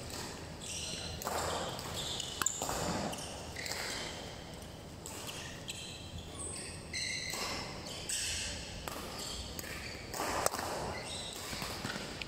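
Badminton being played: a few sharp racket strikes on a shuttlecock, the clearest about two and a half seconds and ten and a half seconds in. Short high squeaks of court shoes on the synthetic floor come in between, over a background of hall noise.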